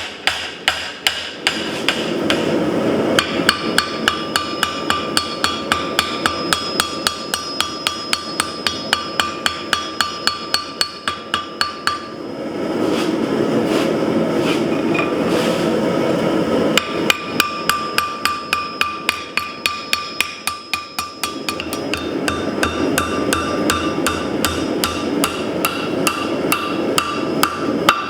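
Hand hammer striking steel on an anvil in a fast, even rhythm of ringing blows, as the steel bar is forged. A steady rushing noise comes and goes underneath in stretches.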